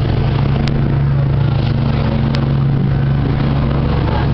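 Boat engine running steadily under way, a constant low drone with water and wind hiss over it, and two brief clicks.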